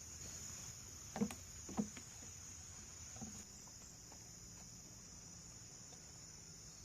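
Steady high-pitched insect chorus droning without a break, with two short dull knocks about a second in and a softer one a little later.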